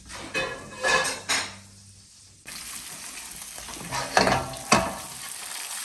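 Petrale sole frying in butter in a frying pan, sizzling, with several sharp clatters of a utensil against the pan. The sizzle drops low, then comes back suddenly about two and a half seconds in.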